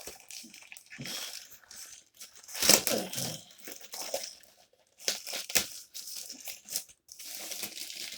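Plastic comic bag crinkling and rustling in irregular bursts as a comic is worked out of it, loudest about three seconds in.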